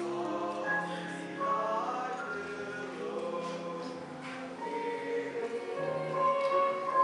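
A small ensemble of teenage singers performing a choral piece in several vocal parts, holding long notes in harmony.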